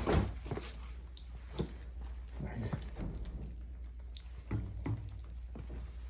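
Water leaking from an old boiler, dripping and splashing in irregular drips over a steady low hum.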